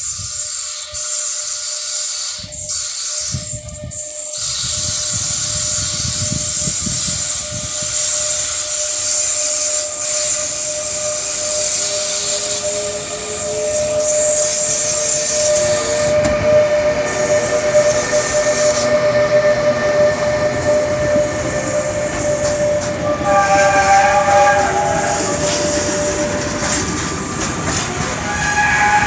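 Stadler Euro6000 electric locomotive pulling a container train away and past, with a steady hiss, a steady whine and a lower whine rising as it gathers speed. Near the end, container wagons rolling by give short wheel squeals.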